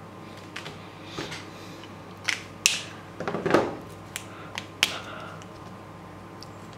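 A quick run of sharp plastic clicks and clacks as colouring markers are swapped: one dual-tip alcohol marker capped and set down, another picked up and uncapped.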